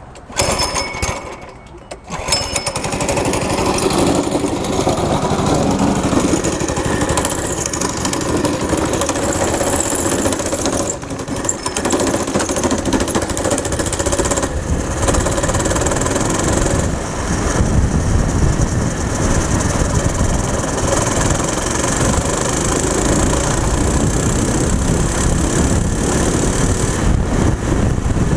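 Go-kart's small single-cylinder four-stroke engine starting up about two seconds in, then running hard at high revs as the kart is driven, with the level dipping and rising now and then as the throttle is worked.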